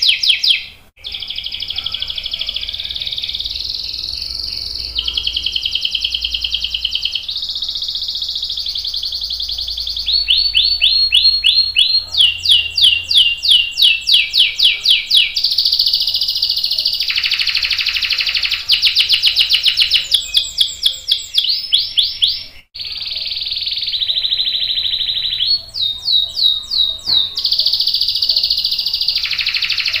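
Canary singing a long, continuous rolling song of high trills and runs of rapidly repeated notes, changing pitch and speed every second or two. The song breaks off only briefly, about a second in and again about 23 seconds in.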